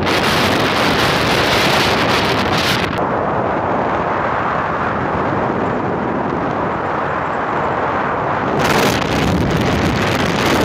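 Wind rushing on the microphone of a moving car, over steady road and vehicle noise. The hiss drops away about three seconds in and comes back briefly near the end.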